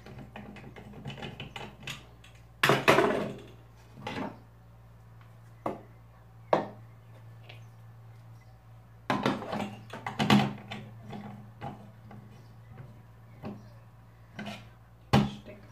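Irregular knocks, clicks and clatter of plastic and metal parts as the drum insert of a hand-cranked Tupperware Profi-Chef Mahlwerk rotary grater is taken out and swapped for the fine grating drum, with louder handling rattles about three seconds in and again about ten seconds in.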